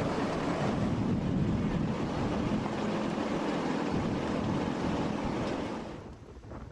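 Strong wind buffeting the microphone, a steady rushing noise that fades away near the end.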